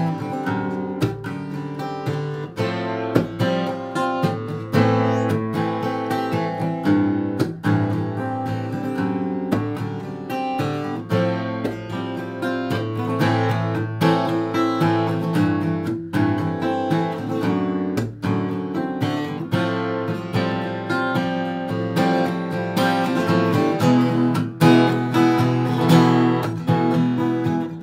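Acoustic guitar strummed in a steady rhythm, an instrumental break with no singing.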